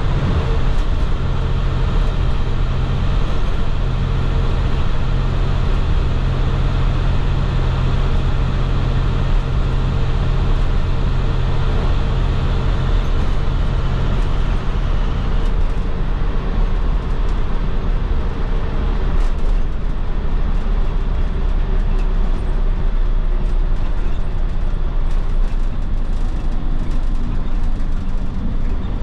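2010 IC FE school bus with a MaxxForce DT inline-six diesel, driving along at a steady pace. The engine's steady low note changes about halfway through, when its strongest tone drops away.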